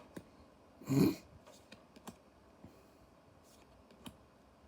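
Trading cards being handled on a table: light clicks and taps as cards are moved and set down, with one louder short rustle about a second in.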